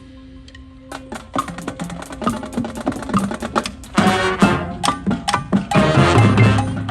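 Marching band performing: a percussion passage of sharp, rapid hits starts about a second in, and the full band comes in with loud sustained chords over the percussion about four seconds in.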